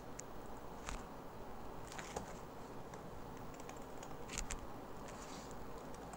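A handful of separate computer keyboard key presses and clicks, spaced irregularly over a faint steady background hiss.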